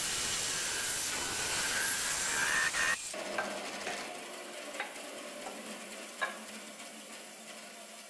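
Bandsaw cutting through a chestnut-wood handle blank: a steady hiss of the blade in the wood with a whine above it. About three seconds in the cut stops suddenly and the saw runs on quieter, with a few light knocks of wood pieces handled on the table, fading away near the end.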